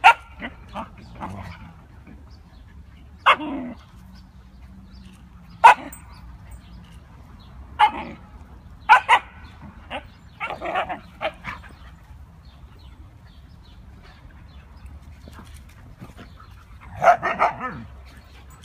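Siberian huskies barking and yipping in play as they wrestle. Short, sharp barks come a few seconds apart, with a quick run of barks near the end.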